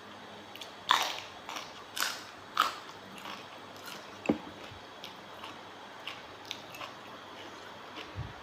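A person biting and chewing raw seafood, with a run of short sharp mouth smacks and clicks, the loudest about a second in and a few more over the following three seconds.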